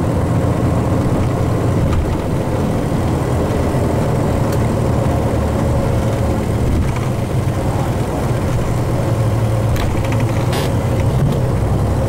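Tour bus engine and road noise heard from inside the cabin: a steady low rumble with a faint steady whine above it and a few light clicks.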